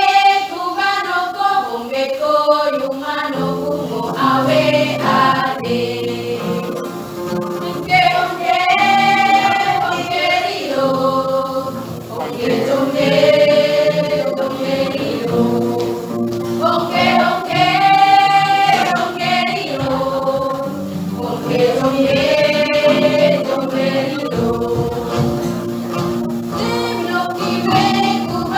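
A small choir of young women singing a song together in harmony, in long held phrases with short breaks between them.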